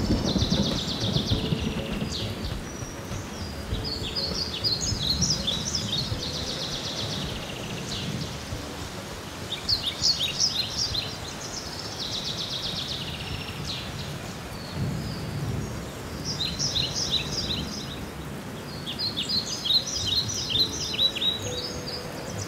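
Birds chirping in short clustered bursts every second or two, over a steady low rushing noise.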